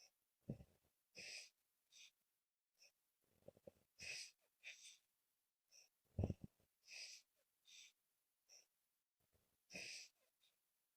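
A woman snoring and breathing heavily in her sleep, faint: hissing breaths every second or two, with low snores about half a second in and, loudest, around six seconds in. The breathing is laboured, a struggle for breath.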